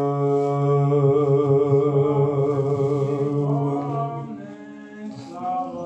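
A single man's voice chanting in Orthodox liturgical style, holding one long steady note for about four seconds, then moving to lower notes and growing quieter.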